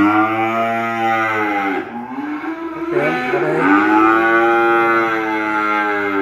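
A calf mooing twice, loudly, in two long drawn-out calls. The first lasts about two seconds and the second about three, and each bends down in pitch as it ends.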